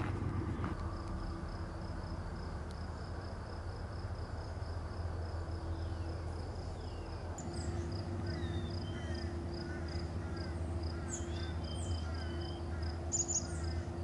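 Outdoor summer ambience: an insect calling in a high, even pulse about three times a second, with short chirps joining in about halfway through, over a low steady hum.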